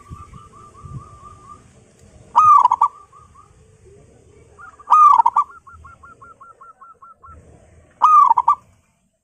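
Local zebra dove (perkutut) cooing loudly: a short, strong call phrase repeated about every two and a half to three seconds, three times, each trailed by a quick run of short clipped notes.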